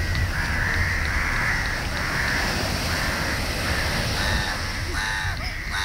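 Crows cawing, one call after another, over a steady low rush of surf and wind.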